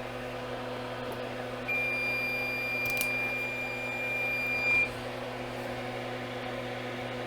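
A soldering station gives one long, steady electronic beep of about three seconds during a soldering-tip change, with a short click partway through, over a constant electrical hum.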